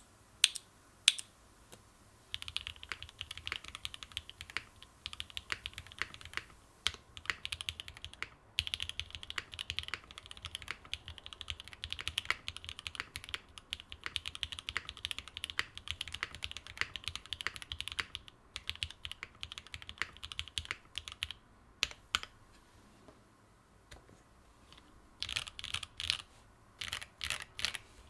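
Typing on a custom mechanical keyboard with lubed and filmed SP-Star Meteor White linear switches in an FR-4 plate, under GMK keycaps: fast runs of sharp keystrokes with brief pauses. A few louder single strokes come right at the start, and near the end the typing slows to separate keypresses after a short lull.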